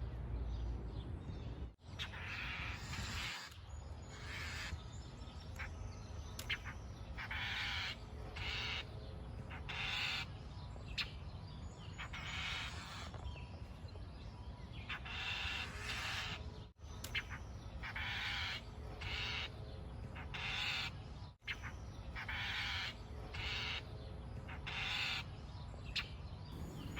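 Baby starling in its nest giving short, raspy begging calls again and again, in runs of several calls, over a steady low rumble.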